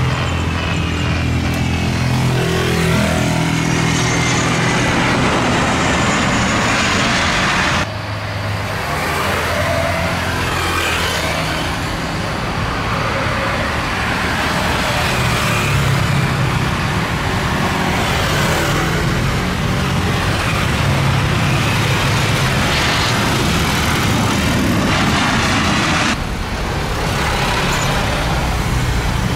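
Turbofan engines of twin-engine jet airliners on final approach and landing: a loud, steady rush of jet noise with a low hum beneath it. The sound changes abruptly twice, about 8 seconds in and again near the end, as one landing aircraft gives way to the next.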